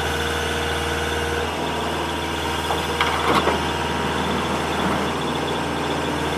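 Takeuchi TL240 tracked skid steer's diesel engine running steadily, with a few short knocks about three seconds in.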